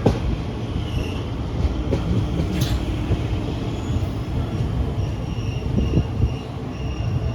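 Passenger train running on the rails: a steady low wheel rumble with several sharp knocks from the track, and a faint high wheel squeal in the second half.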